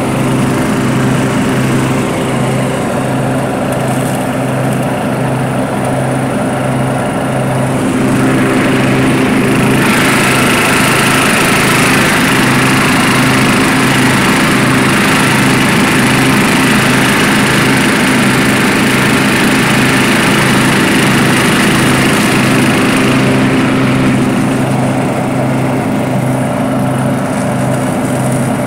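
A 1989 Murray rear-engine riding mower running steadily while bagging leaves, its engine note pulsing evenly. About a third of the way in it grows louder, with a rushing hiss over the top, and it eases back near the end.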